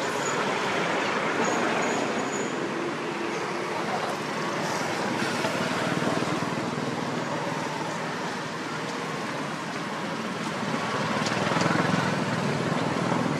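Steady outdoor background noise: an even rush with no distinct events, swelling and easing slightly.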